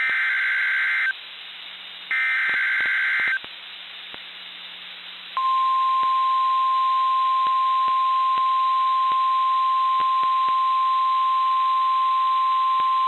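NOAA Weather Radio alert header: the last two of three harsh, buzzy SAME data bursts, each about a second long and a second apart, then after about two seconds of radio hiss the steady 1050 Hz warning alarm tone starts and holds. The sequence signals that a warning, here a severe thunderstorm warning, is about to be broadcast.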